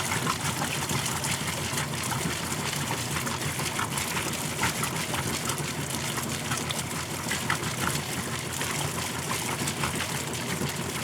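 Kenmore top-load washing machine running with its lid switch bypassed: a steady motor and pump hum under water gushing and splashing through the machine. The owner takes the faulty lid switch for the cause of it stopping halfway through the cycle.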